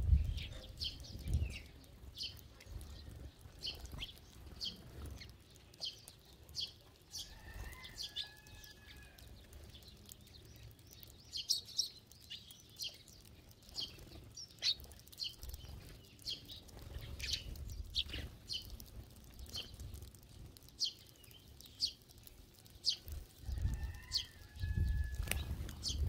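A flock of Eurasian tree sparrows feeding: many short, scattered chirps throughout, with bursts of wing flapping as birds flit about, heaviest near the start and near the end. Twice a longer, lower call stands out from the chirping.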